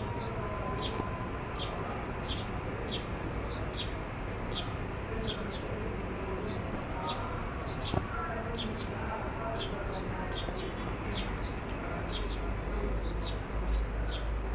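A bird chirping over and over: short, high, downward-sweeping chirps, often in pairs, about one to two a second. Behind them is a steady background din, with a low rumble swelling near the end.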